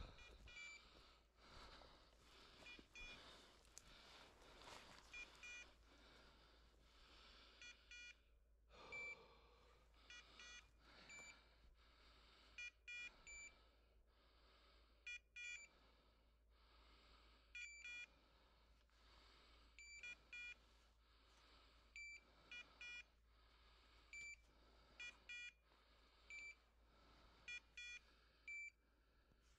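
Short high electronic beeps, mostly in pairs or threes and repeating every couple of seconds, from a hunting dog's beeper collar working in the cover. Under them is faint rustling of footsteps pushing through bracken and brush.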